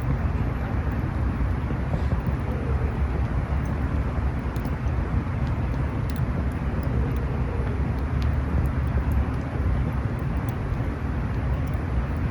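Campfire burning outdoors: a steady low rumble with a few faint, sharp crackles scattered through it.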